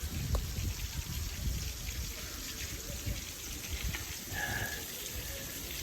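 Rushing water from a rain-swollen creek or waterfall, a steady hiss, with irregular low rumbles underneath.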